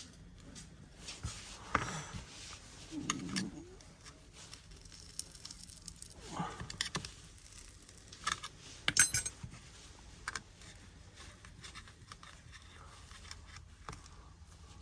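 Metal tweezers clicking and scraping against the phone's innards as the battery adhesive strips are worked loose, in scattered small ticks with a quick cluster of sharp clicks about nine seconds in.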